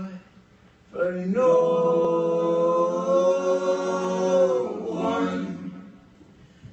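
Several voices of a band singing in harmony with no instruments heard: after a short pause, one long chord held for about four seconds, then dying away.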